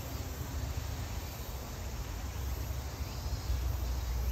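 Steady outdoor background noise: an even hiss over a low rumble, with no distinct sounds standing out.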